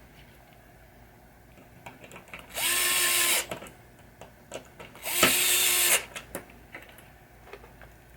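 Power drill/driver running a screw in, twice, each run about a second long: it spins up quickly and holds a steady whine. Small handling clicks come before and between the runs.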